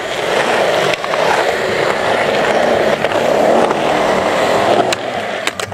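Skateboard wheels rolling over rough concrete with a steady grinding rumble, and a few sharp wooden clacks from the board near the end.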